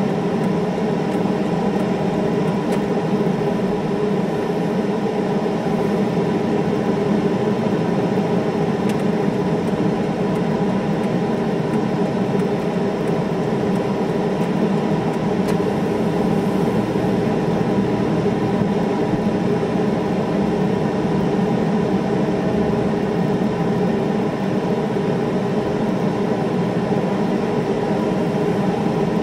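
Steady hum and whir inside a car's cabin as the car drives slowly. It stays at the same pitch and level throughout.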